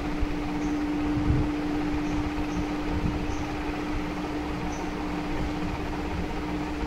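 Steady machine hum on one low pitch over an even hiss.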